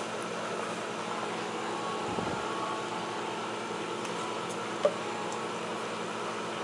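A steady mechanical hum, like a fan running, with one faint click about five seconds in.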